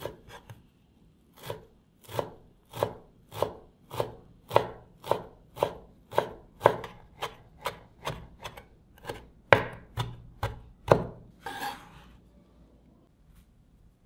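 Chef's knife chopping fresh coriander on a wooden cutting board: steady strokes of the blade hitting the board, about two a second. It ends with a short scrape and then stops.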